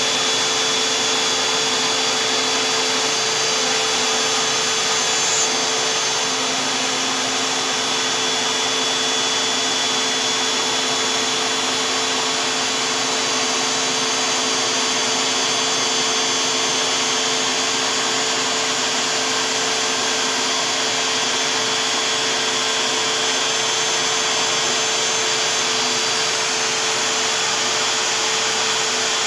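DeWalt 611 trim router turned down low on its speed dial, spinning a single-flute 1/8-inch bit that mills HDPE on a LowRider 2 CNC: a steady whine over an even rush of noise.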